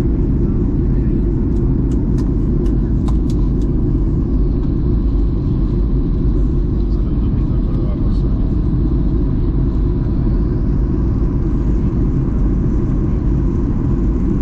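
Steady low cabin rumble inside a Boeing 737-800 airliner, with a quick run of sharp clicks or rattles about two to three seconds in.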